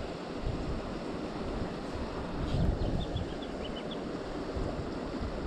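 Wind gusting over the microphone above the steady rush of a flowing stream, with a bird's quick run of faint high chirps about three seconds in.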